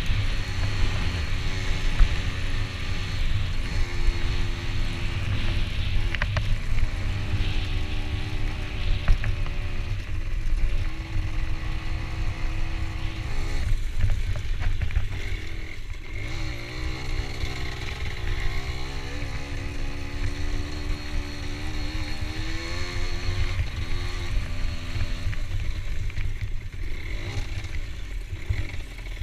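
A motor vehicle engine running, its pitch holding for a second or two and then rising or falling as the engine speed changes, over a heavy low rumble.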